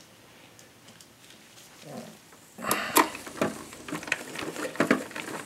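Phillips screwdriver and gloved hands working on the metal battery bracket inside a UPS, driving a screw. After a quiet start, a run of irregular clicks and scrapes begins about two and a half seconds in.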